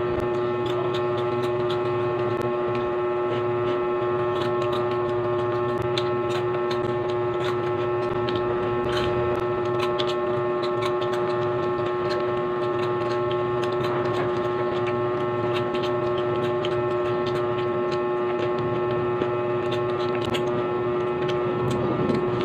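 A loud, steady machine-like hum with a strong single tone, starting abruptly and holding even, with scattered short crackles of the foil snack bag being handled.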